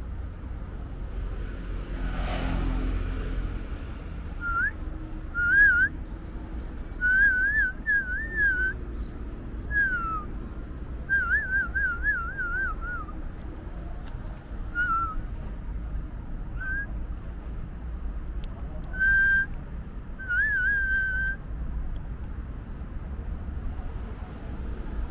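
A person whistling a series of short, thin notes and glides, one a wavering trill, with pauses between them, over a steady low rumble. A broad rushing noise swells and fades in the first few seconds.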